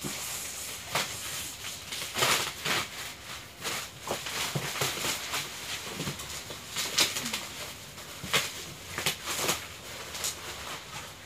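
Clear plastic wrap crinkling and rustling as it is pulled and torn off a cardboard box, with irregular sharp crackles throughout.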